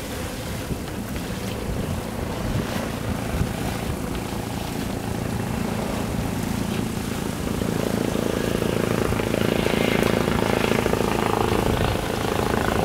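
Helicopter flying overhead, its steady rotor and engine sound growing louder from a little past halfway through.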